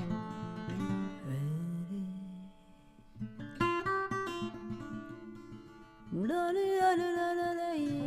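Background music led by acoustic guitar picking, with a sustained melody note that slides up about six seconds in and holds.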